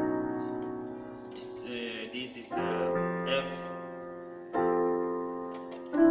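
Yamaha PSR arranger keyboard playing sustained chords of a 1-5-4-5 progression, moving into the key of F. Four chords are struck, roughly two seconds apart, each ringing and fading before the next.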